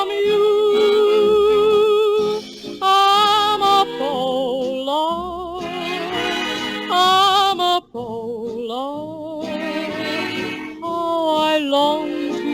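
An old-style sentimental love song: a melody sung or played with wide vibrato over instrumental accompaniment.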